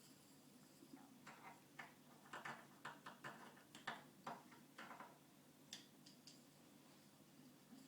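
Faint, irregular light taps and clicks on a hard surface, coming in a quick cluster from about a second in, then a couple more near the end.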